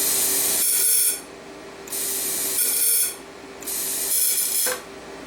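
Welder torch triggered at a sealed canister to fill it with argon, giving three hissing bursts about a second apart over the welding machine's steady hum.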